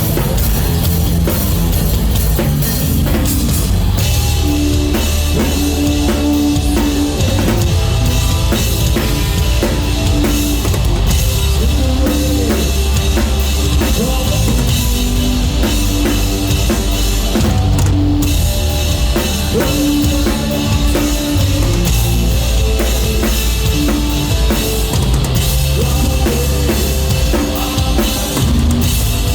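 Live rock band playing a song, with the drum kit up front: kick drum, snare and cymbals driving a steady beat under bass and guitar.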